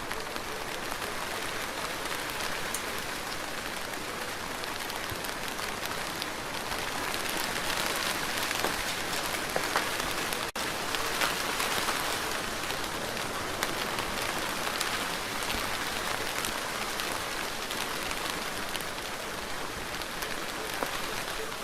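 Steady rain falling on a surface, with scattered sharper drops standing out. About halfway through it cuts out for an instant.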